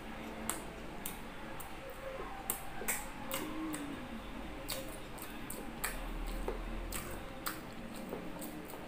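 A person chewing food up close, with irregular wet mouth clicks and smacks, about a dozen scattered through it.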